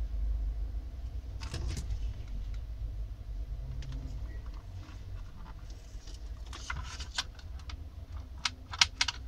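Clicks and rattles of hands handling a plastic desk telephone and its clip-on test leads, with a couple of clicks early and a quick run of sharp clicks near the end, over a low steady hum.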